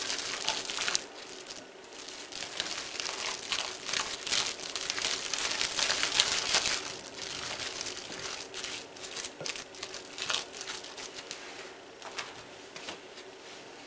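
Tuna salad with mayonnaise being mixed by hand in a glass bowl: a continuous run of quick, wet, scratchy mixing noises. It is loudest in the middle and fades after about seven seconds.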